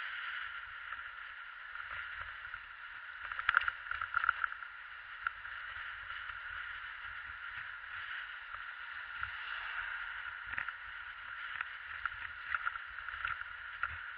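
Steady rush of wind and tyre noise from a recumbent trike riding at speed, with short clusters of small knocks and rattles about three and a half seconds in and again near the end.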